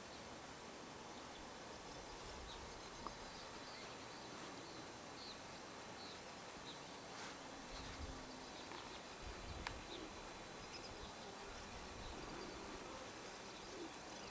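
Faint outdoor ambience: a steady hiss with scattered small, high chirps, a couple of tiny clicks, and a brief low rumble about 8 and 9.5 seconds in.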